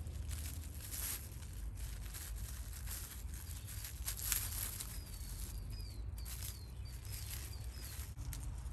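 Plastic sheet rustling and crinkling in irregular bursts as it is handled and wrapped around a branch for air-layering. Faint, short, high chirps repeat about twice a second from halfway through.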